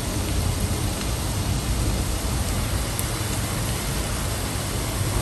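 Gram-flour pakora batter deep-frying in hot oil in a wok, a steady sizzle.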